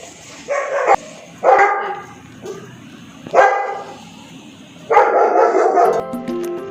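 A dog barking several times in short bursts. Background music comes in near the end.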